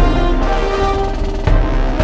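Background music: sustained pitched notes with a low drum hit at the start and another about a second and a half in.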